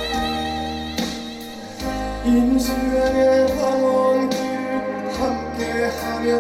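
Korean trot song backing track playing over the stage PA, with a male singer's live voice coming in through a handheld microphone about two seconds in.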